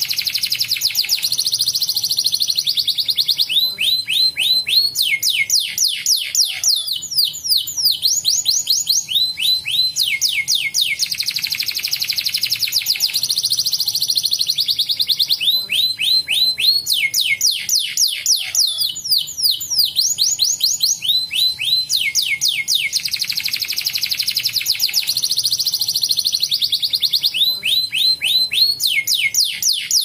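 Domestic canary song: fast rolling trills and runs of sharply falling notes, with the same phrase coming round about every ten seconds.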